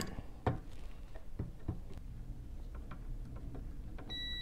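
Light metal clicks and taps as fuses are worked into place with pliers inside the inverter. Near the end a multimeter's continuity beep starts, a steady high tone, showing the new fuse conducts.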